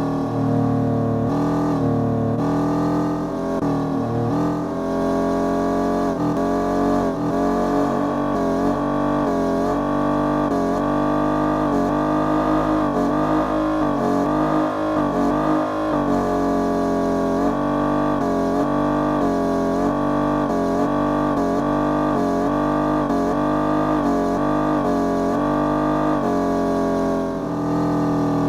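Music of sustained, slowly changing chords over the steady road and engine drone of a Genesis G70 cruising on the highway.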